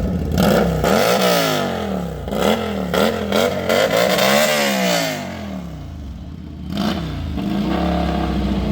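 Lifan V16S motorcycle's V-twin engine breathing through a Vintage Exhaust VE07 muffler, revved in a series of quick throttle blips. It then drops back to a steady idle about seven seconds in.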